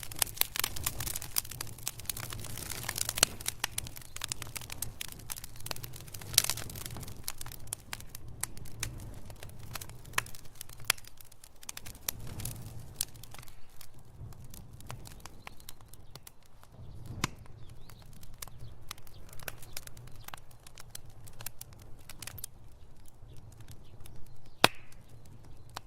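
Wood fire burning in a fireplace: a steady low rumble of flames with frequent crackles and a few louder sharp pops from the burning wood.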